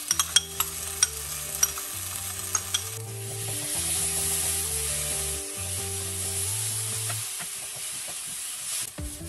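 Rice noodles and pad thai paste being stir-fried in a nonstick wok. A wooden spatula clicks and scrapes against the pan for the first few seconds, then the sizzle swells from about three seconds in.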